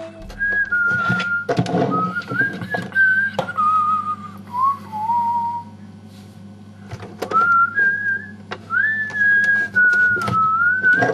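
A man whistling a slow, wandering tune, the notes sliding up and down, with a pause around the middle before he starts again. A few sharp knocks from his fingers handling an object close to the microphone.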